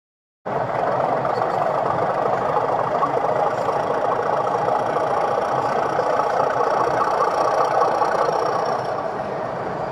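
Model Class 31 diesel locomotive's sound-decoder engine sound, a steady diesel running note from a small onboard speaker, starting abruptly about half a second in.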